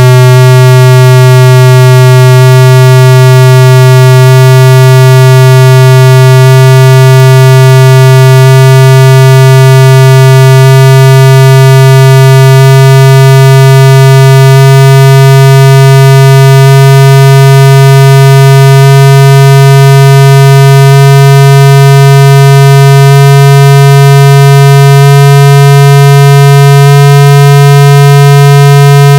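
A loud, steady, buzzy low electronic tone from a car-audio judging test CD, its pitch edging up in small steps every couple of seconds.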